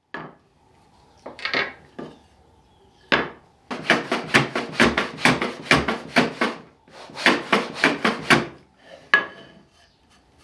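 Metal hand plane shooting the end grain of a sawn wooden part square on a shooting board: quick, even scraping strokes, about four a second, in two runs with a short break, after a few separate scrapes at the start. A single sharp knock near the end.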